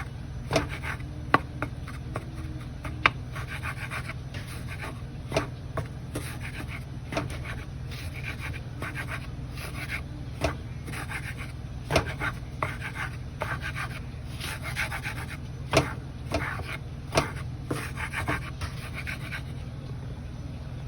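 Kitchen utensils at work: repeated scraping with sharp knocks every second or two, over a steady low hum.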